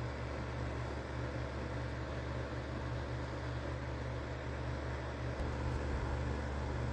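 Steady low machine hum with an even rushing noise, as from a running heater or fan, getting a little louder about five and a half seconds in.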